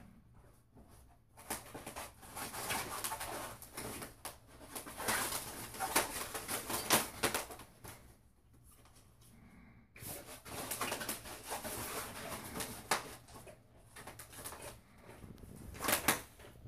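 Kittens clambering over fabric, their claws scratching and rustling on the cloth in two long stretches with a short lull between them.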